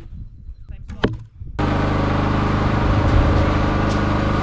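Two short sharp knocks in the first second or so, then, from about a second and a half in, an engine running at a steady, even speed.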